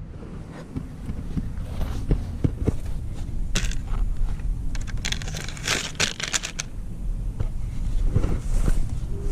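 Radio-controlled toy truck running over rough ground: a low rumble with scattered clicks, and louder crunching and crackling about three and a half seconds in and again from about five to six and a half seconds in.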